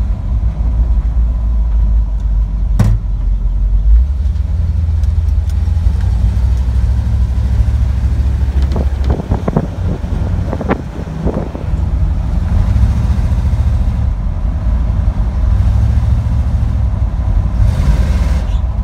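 1955 Chevy pickup's engine running as the truck drives slowly, heard from inside the cab. There is a sharp click about three seconds in. The engine note eases off around the middle and then picks up again.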